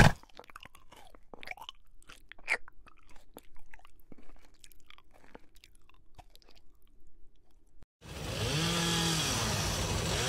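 An animal chewing and munching, with many irregular crisp crunches, most likely a donkey eating. About eight seconds in it cuts off suddenly to a steady rushing background with a low, wavering tone.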